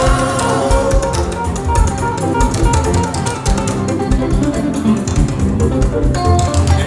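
Church band playing an instrumental passage between sung hymn verses: a steady percussion beat with a bass line and plucked strings, no singing.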